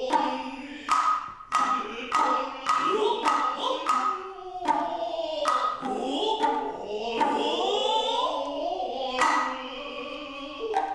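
Noh music: sharp drum strikes at an uneven pace under drawn-out, sliding vocal calls and chanting, with a steady high tone in the first half.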